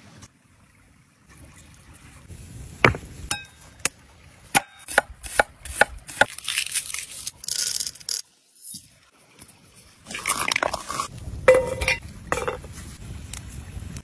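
Food-preparation sounds in several short takes: a run of sharp separate knocks and taps on wood, then a rattling, scraping stretch, then after a brief silence a longer, noisier stretch of handling sounds.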